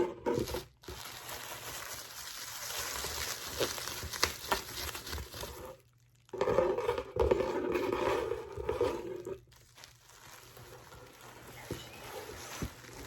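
Parcel packaging being handled and unwrapped: paper and plastic crinkling and crunching, with scattered clicks. A louder rasping stretch runs from about six to nine and a half seconds in.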